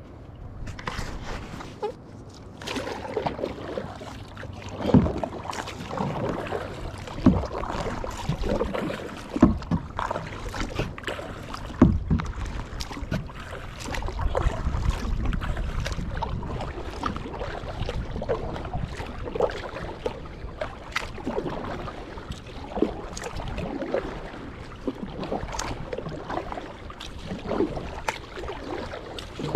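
Kayak paddle dipping and pulling through the water, with a splashy stroke roughly every two seconds over a steady trickle of dripping water.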